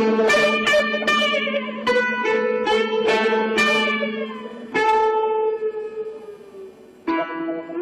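Background music: a plucked string instrument playing a slow melody, its notes ringing and fading. The playing thins to a quiet pause about seven seconds in, then a new phrase starts.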